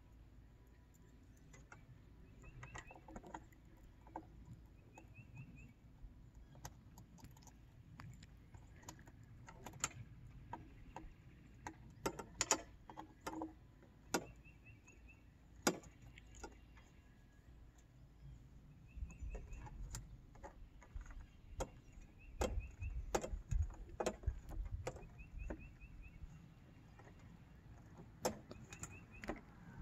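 Scattered light metallic clicks and taps of bolts, a washer and a bracket being fitted by hand on a solar street light's mount. Wind rumbles on the microphone in the second half.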